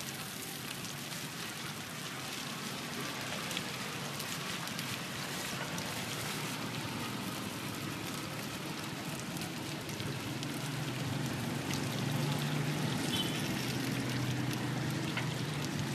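Chive rice cakes (Nom Kou Chhay) sizzling in hot oil in a wide steel frying pan: a steady, rain-like crackle. A low hum comes up in the background about ten seconds in.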